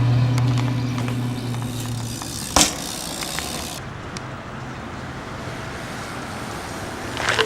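A steady low hum, like an engine running, that stops about two seconds in, then a sharp click and low background noise, with a short clatter near the end.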